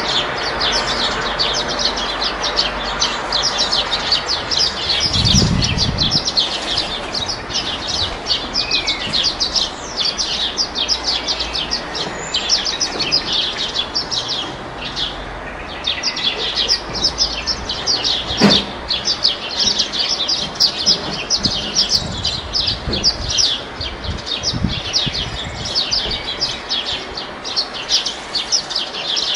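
Dense, fast high-pitched bird chirping that runs on without a break, with a low thump about five seconds in and a sharp click near the middle.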